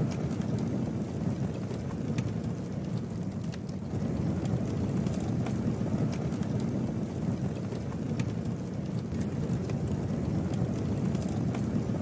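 Campfire burning: a steady low rush of flames with scattered small crackles and pops.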